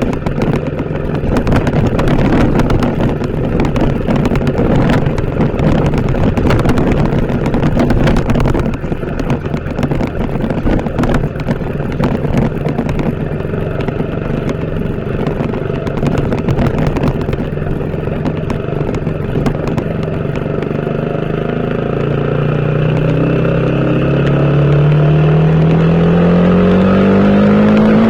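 TVS Apache RTR 160 4V motorcycle's single-cylinder engine running under way, rough and uneven at first, then rising steadily in pitch as it accelerates over the last several seconds. The pitch drops sharply at the very end.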